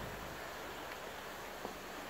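DIY koi pond air curtain (perforated aeration hose on a stainless rod) bubbling with the air pump at full output: a steady fizzing hiss of many bubbles breaking across the water surface.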